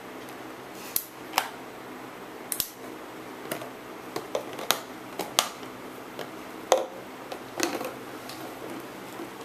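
Golden retriever chewing an empty plastic water bottle: the plastic crackles and clicks in sharp, irregular pops, about ten over several seconds.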